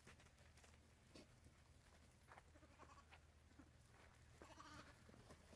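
A few faint, distant sheep bleats over near silence, the clearest a little over four seconds in: the flock and a lamb left behind in the pen calling to each other.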